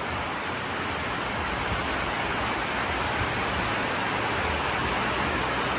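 Heavy rain falling steadily onto a corrugated metal roof, an even hiss.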